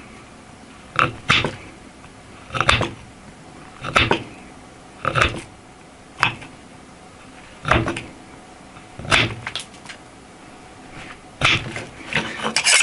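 A CPM 10V steel knife push-cutting through a thick power cord, a short sharp crunch with each cut, about every second and a half, roughly ten times.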